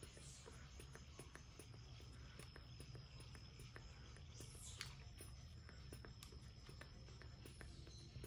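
Faint, irregular small clicks of a baby monkey sucking milk from a feeding bottle's teat, with a faint steady high tone behind and one quick falling chirp about five seconds in.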